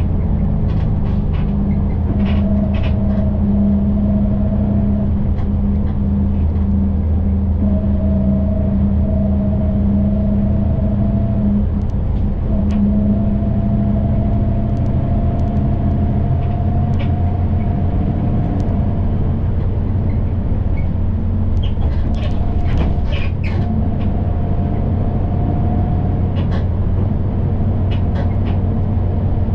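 City bus running, heard from inside the cabin: a steady low engine drone with a thin whine that comes and goes in stretches of several seconds, rising slightly in pitch each time, and scattered light rattles and clicks.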